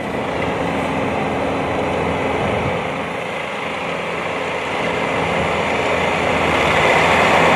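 Road traffic: a vehicle's engine hum and tyre noise, growing louder toward the end as it passes close.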